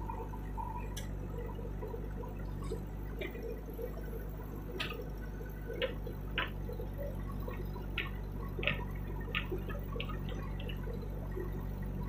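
Diesel engine of a JCB 3DX backhoe loader running steadily while its rear bucket digs soil, with a scatter of sharp clicks and knocks, most of them between about five and eleven seconds in.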